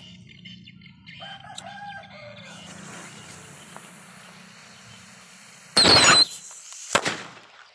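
Firecrackers going off: several seconds of hiss, then a loud blast lasting under half a second a little before six seconds in, and a second sharp bang about a second later.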